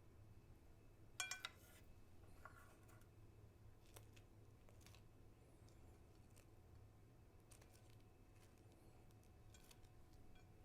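Quiet handling sounds at a table: one sharp tap with a brief ring about a second in, then scattered soft clicks and rustles over a low steady hum.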